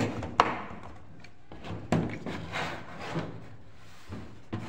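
Sharp clicks and knocks of hard plastic as an electric switchboard in a clear plastic box is handled, the loudest about half a second and two seconds in.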